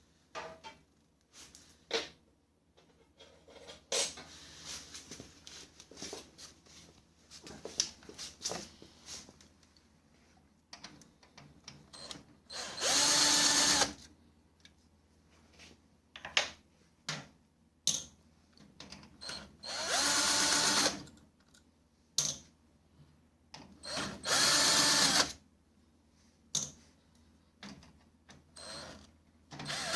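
Electric screwdriver whirring in three short bursts of about a second and a half each, working screws out of the printer during disassembly. Between the bursts come scattered clicks and knocks of parts and screws being handled.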